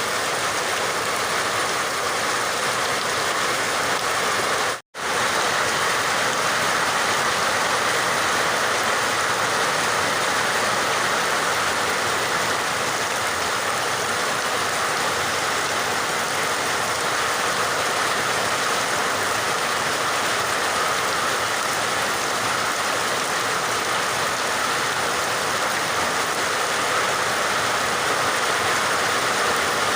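Steady heavy rain falling, an even dense hiss, which cuts out for an instant about five seconds in.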